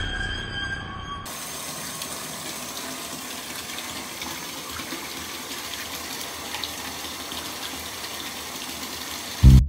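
Bathtub filling from the tap: a steady rush of running water. The tail of some music cuts off about a second in, and music starts up right at the end.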